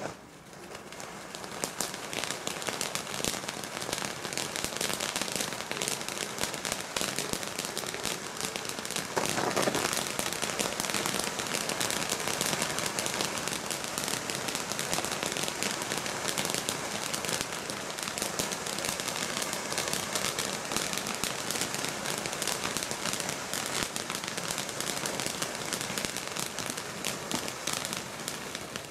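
Bright Star Vapouriser giant finale fountain firework burning: a continuous hissing spray of sparks, thick with fine crackling. It builds over the first couple of seconds and grows louder about nine seconds in.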